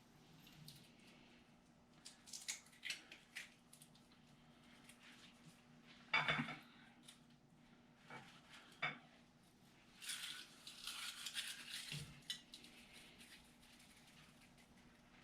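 Faint, scattered clinks and crackles of kitchen handling: crisp bacon being crumbled over the pan, with a utensil clinking against it. A longer stretch of scraping comes about two-thirds of the way through.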